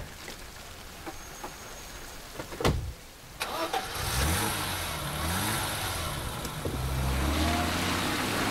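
A sharp thud, then a car engine starts about three and a half seconds in and keeps running, rising in pitch as it revs.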